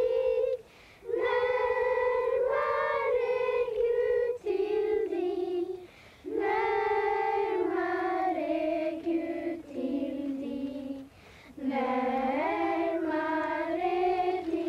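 A choir of high voices singing a slow melody in long held notes, in phrases with short pauses about a second in, about six seconds in and about eleven seconds in.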